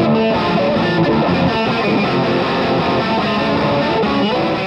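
Distorted electric guitar music, loud and continuous, beginning to fade near the end.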